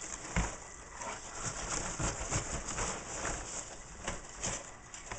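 Rummaging through a laptop box's packing: irregular rustling and crinkling of paper guides, plastic and packing peanuts, with a soft knock about half a second in.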